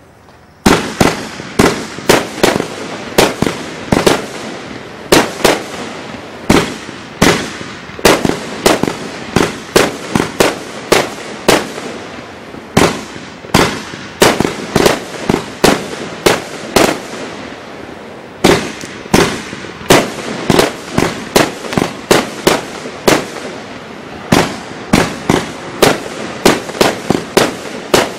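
Paramount Fireworks 'Magneto' 36-shot firework cake going off, its shots firing one after another with about one to two sharp bangs a second, starting about a second in. Each bang trails off briefly, over a steady noise between bangs.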